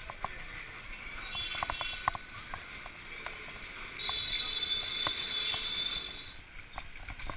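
Street sounds of riding a bicycle along a rough lane: irregular sharp clicks and rattles over a steady hiss, with a high steady tone from about four to six seconds in.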